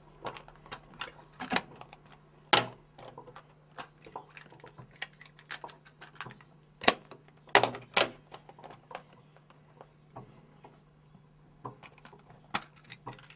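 Irregular sharp clicks and knocks, a few of them much louder, over a steady low electrical hum.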